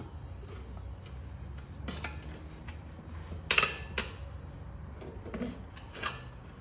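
Metal hand tools clinking and knocking against a steel tractor wheel rim as a tire is pried off by hand, with scattered light clicks and two louder metallic strikes about three and a half and four seconds in.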